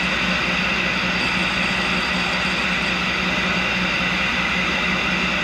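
Tool and cutter grinder and shop vacuum running steadily while a carbide lathe tool is hand-ground against a 180-grit diamond wheel to form its nose radius. An even hiss and hum with no breaks.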